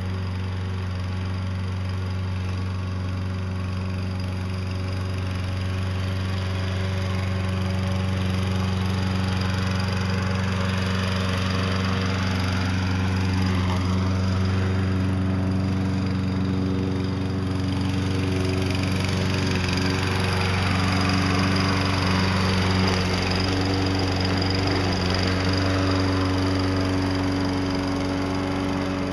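Walk-behind self-propelled gas lawn mower's small engine running steadily as it pushes snow with a homemade plow blade fitted to its front.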